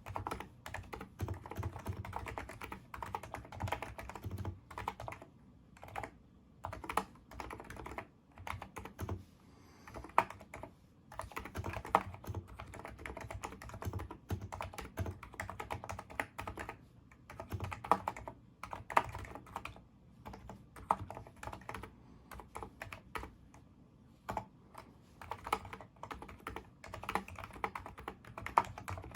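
Typing on a NIZ Micro82 keyboard with 35 g electrostatic capacitive switches: a steady stream of keystrokes with a few short pauses and a few sharper, louder strikes.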